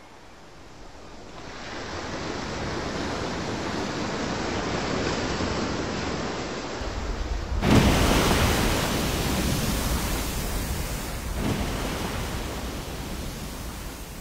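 Steady rush of wind and open sea, broken about halfway through by a sudden loud splash as a humpback whale crashes back into the water after breaching, with a smaller surge of splashing a few seconds later.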